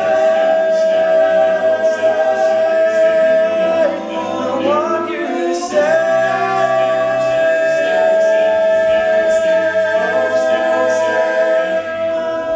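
A cappella vocal group singing a held chord without words, one voice sustaining a long note that bends in pitch about halfway through, with light regular percussive clicks on the beat.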